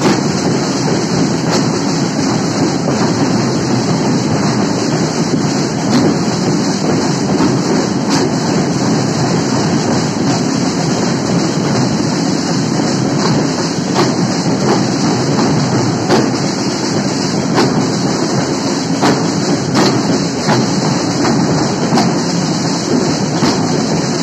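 Street marching drum band playing: snare drums, tenor drums and bass drums beating a dense, continuous rhythm, with sharper accents every second or two.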